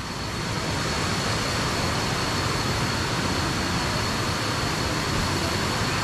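Steady rushing of a waterfall, an even wash of falling water with no breaks, and a thin high steady tone held over it.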